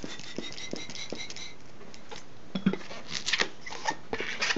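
A 160 latex modelling balloon being inflated with a hand pump and then handled: a thin steady whistle of air for the first second and a half, then scattered short squeaks, clicks and rubs of the latex under the fingers.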